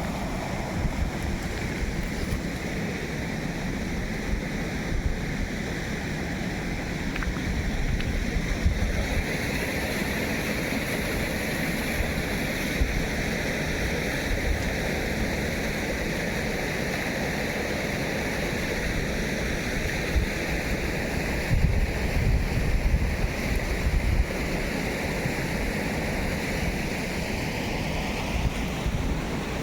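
Steady rushing water, with wind buffeting the microphone in gusts.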